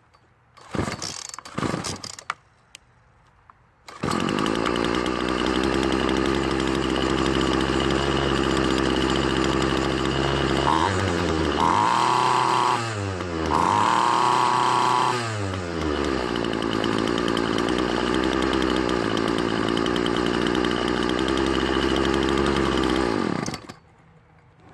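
A Poulan Pro two-stroke string trimmer engine starting after a couple of starter-cord pulls. It catches about four seconds in, runs steadily, is revved up twice in the middle, and is shut off near the end. It is running now that the carburetor diaphragm's gasket has been refitted on the correct side.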